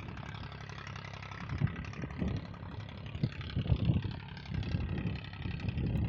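Low, gusty rumble of wind buffeting a phone microphone, with handling noise as the phone is carried along an open sandy bank; the rumble comes in uneven surges, strongest from about a second and a half in.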